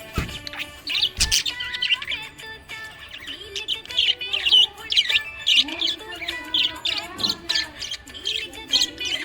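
Budgerigars chirping and warbling, a dense run of quick high chirps and trills with no break.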